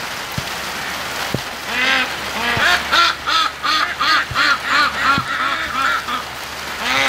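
Domestic ducks quacking in answer to a call, a run of quacks about three a second from about two seconds in to about six seconds, with more near the end. Steady rain falls throughout.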